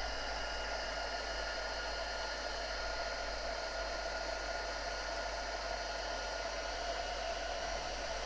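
Craft heat gun blowing steadily with a faint whine, melting clear embossing powder.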